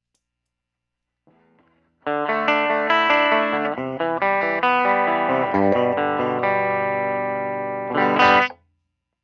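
Electric guitar played clean through a Benson amplifier: a short phrase of ringing chords and single notes. It starts about two seconds in and ends in a quick strum near the end that stops abruptly.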